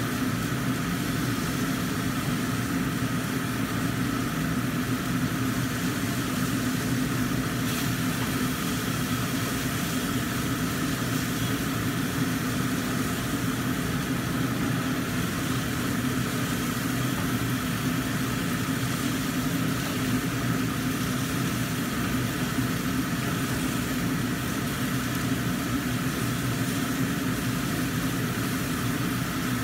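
Kitchen range hood exhaust fan running with a steady hum, over a lidded wok frying on a gas burner.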